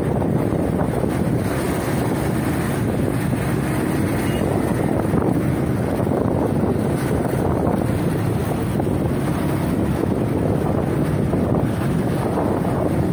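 Steady wind buffeting the microphone on a moving vehicle, over a constant rumble of engine and road noise in traffic.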